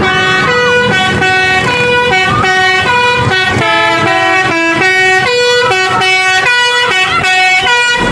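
A bus's Basuri 'telolet' melody horn playing a quick tune, with loud horn notes that change pitch every fraction of a second and no pause.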